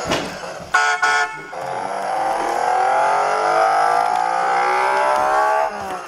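Electronic sound effects from a toy La Ferrari electric car's speaker. Two short horn-like beeps about a second in are followed by a long electronic engine sound that slowly rises in pitch for about four seconds, then stops.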